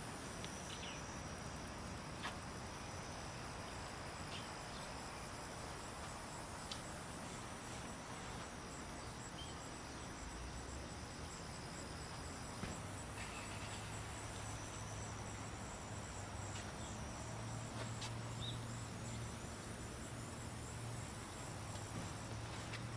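Steady high chirring of insects over a faint background hiss, with a few light clicks; a low hum comes in about halfway through.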